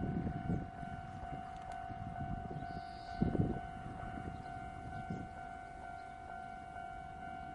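A steady, high whistle-like tone held without a break, over low rumbling gusts, one stronger gust about three seconds in.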